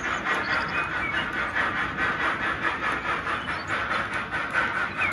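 HO-scale model freight wagons rolling along the track: a steady metallic rattle of small wheels on the rails, with rapid clicking and a gently pulsing level.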